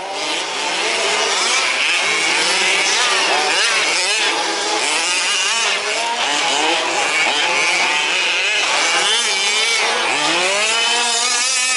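Several 1/5-scale RC trucks' small two-stroke petrol engines racing together, their pitches rising and falling as they rev up and back off, with one truck sweeping up and down near the end.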